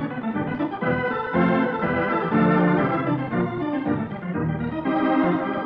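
Organ music cue opening the act of a radio drama: a series of held chords that shift every second or so.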